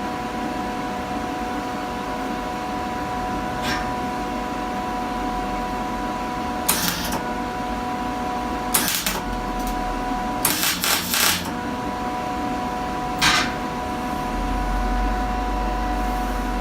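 Welder tack-welding a steel rondel onto a helmet: a handful of short crackling bursts of the arc, one of them broken into several quick pulses, over a steady electrical hum.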